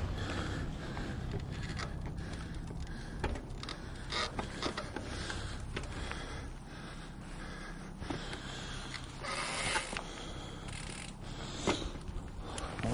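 Mountain bike riding a rough dirt trail: a continuous crunch of tyres over dirt and stones, with many scattered clicks and knocks from the bike rattling over bumps and a low steady rumble underneath.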